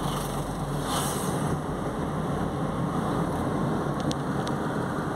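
Steady road and engine noise inside a moving car, with a brief rush of hiss about a second in and two faint ticks near the end.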